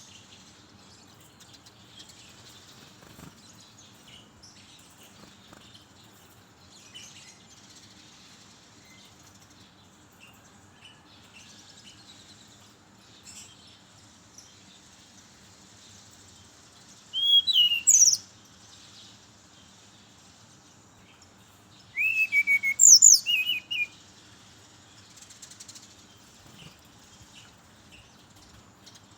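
Brown-chested jungle flycatcher singing two short phrases of quick sweeping whistled notes, the second about five seconds after the first and a little longer, over faint high twittering.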